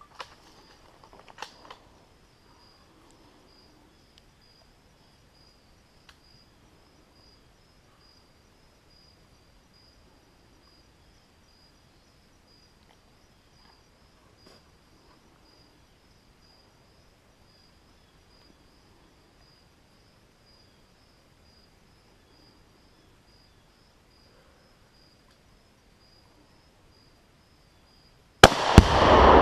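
Faint, steady, pulsing high trill of insects such as crickets, with a few tiny clicks. Near the end comes a sudden, very loud blast: a rifle shot setting off an exploding target.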